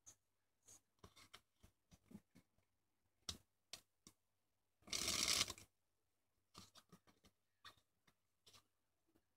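A deck of playing cards being handled: scattered soft snaps and flicks of cards, and about five seconds in a quick riffle of the deck lasting under a second, the loudest sound.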